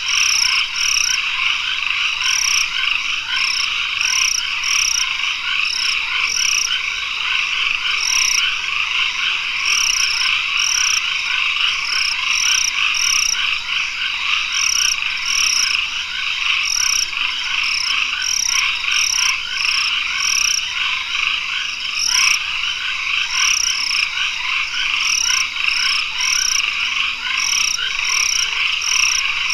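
Tropical forest chorus at dusk, dominated by many calling frogs: a dense, continuous trilling mass, with short high-pitched calls repeating about twice a second over the top.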